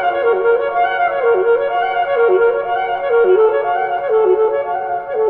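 Music: a single melodic line with a wind-instrument sound, playing a short phrase that dips in pitch and comes back up, repeated about once a second.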